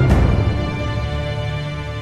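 Dance music ending: a last loud hit just after the start, then a held chord that slowly fades away.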